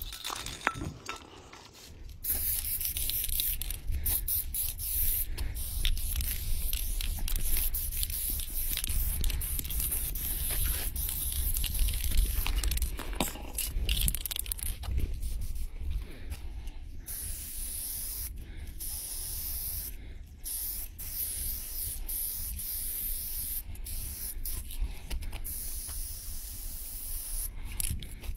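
Aerosol spray-paint can hissing in long bursts, broken by many short pauses as the nozzle is released and pressed again.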